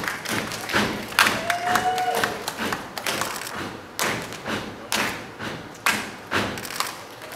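Beatboxing: vocal kick and snare strikes in an uneven, shifting rhythm, with one short swooping vocal tone about a second and a half in.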